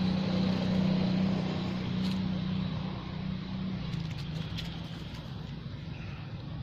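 A motor engine running at a steady pitch, fading away about four seconds in, with a few faint clicks near the fade.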